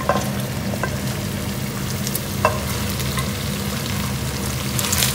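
Seafood sizzling in hot olive oil as razor clams, cockles, squid and prawns are scraped off a chopping board into a pot of frying bacon and prawn heads, with a few sharp clicks of a wooden spatula against the board. A steady low hum runs underneath.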